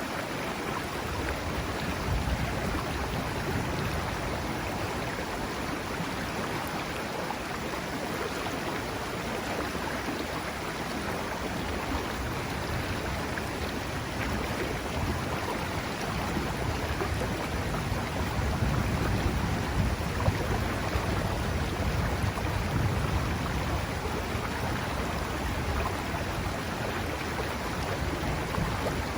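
Mountain river flowing: a steady rush of water over stones. A deeper low rumble swells twice.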